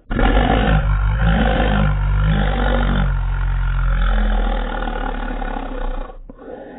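A small dog's snarling growl, slowed down so that it sounds deep and drawn-out, wavering like "la la la la". It starts suddenly, stays loud for about four seconds, then fades over the last two.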